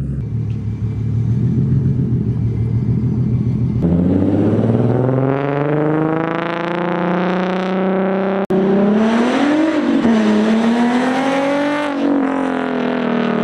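Nissan 350Z's 3.5-litre V6 through a full Tomei titanium exhaust with titanium headers: a steady low idle, then engine speed climbing smoothly for several seconds. After a sudden break about eight and a half seconds in, the engine note rises and falls a few times.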